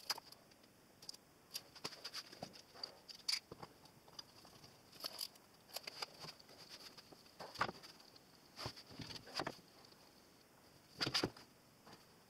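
Scattered light clicks and knocks as a bar clamp and a wooden stop block are fitted to the fence of a plywood crosscut sled, with the table saw switched off.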